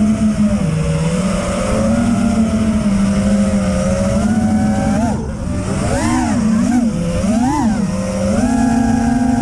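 Brushless motors of a 6S FPV freestyle quadcopter (EMAX ECO 2306 1700 kV with Ethix props) whining in flight, with wind rush over the onboard camera's microphone. The pitch holds fairly steady, then swoops up and down several times in the second half as the throttle is punched and chopped.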